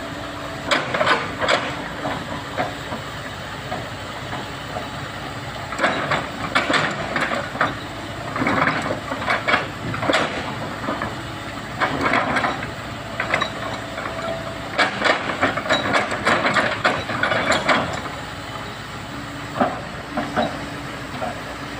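Komatsu excavator working: a steady engine sound with repeated bursts of rattling, hissing noise every second or two as it digs and loads earth.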